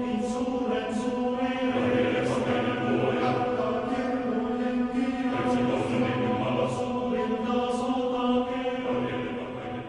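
Background music of chant-like singing over a steady, held low drone.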